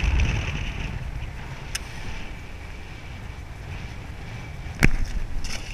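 Wind buffeting the microphone in a steady low rumble, with a few sharp clicks, the loudest a little before the end.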